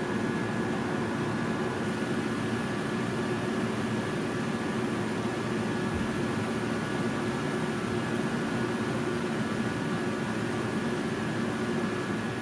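Steady mechanical hum and whir: an even wash of noise with several constant tones in it, unchanging throughout.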